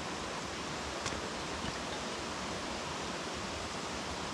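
Steady rushing noise of running water, with one faint click about a second in.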